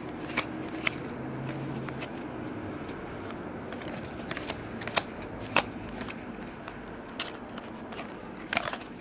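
A stack of trading cards being flipped through by hand, with irregular sharp clicks of card against card.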